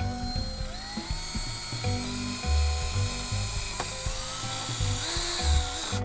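Background music with a steady bass beat over the whine of a cordless drill driving screws, its pitch rising as the motor spins up about a second in and again near the end.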